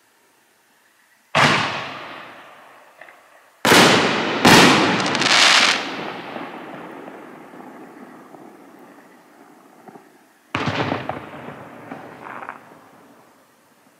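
Dual Exhaust 6-inch consumer canister shells going off in the sky: sharp bangs, three close together about four seconds in and another near the end, each trailing off in a long echo.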